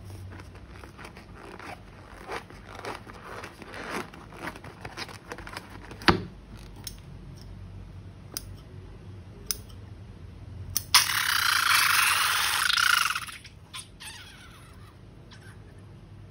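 Piping bags and slime being handled: scattered small clicks and crinkles, then about eleven seconds in a loud hissing rush lasting about two seconds.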